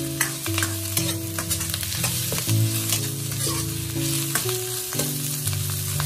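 Sliced Chinese leek and red chilies sizzling in a hot wok over medium heat while a metal wok ladle stirs and scrapes them, with repeated scrapes and knocks of the ladle against the pan.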